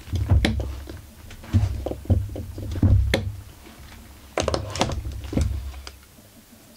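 Stripped Husqvarna 44 chainsaw body being handled and turned over on a workbench: irregular clicks, knocks and dull thumps, with a cluster about four to five seconds in, then quieter.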